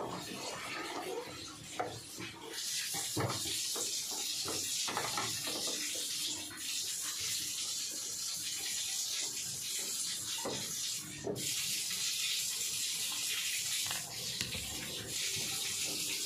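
Water hissing steadily as it runs into an LG top-loading washing machine, starting about two and a half seconds in and breaking off briefly near eleven seconds. The water keeps flowing in even though the machine is switched off, which is the fault being traced. Light clicks and knocks of a screwdriver on the plastic panel sound underneath.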